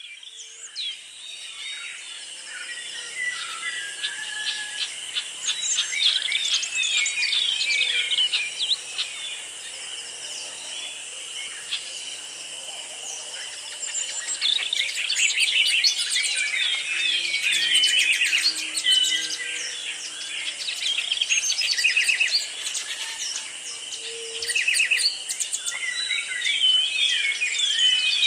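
Several birds singing and chirping over a steady, high-pitched insect drone. The birdsong gets busier about six seconds in and again from about fourteen seconds on.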